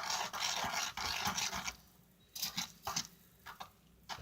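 Stirring a thick mix of dish soap and baking soda on a sheet of tin foil: scraping and crinkling in a long stretch, then a few shorter strokes near the end.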